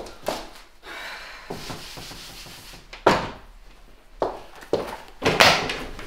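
A handful of knocks and thuds, the two loudest about three seconds in and near the end, with a soft hiss between them: footsteps and furniture knocks as a person walks across a small classroom and sits down at a desk.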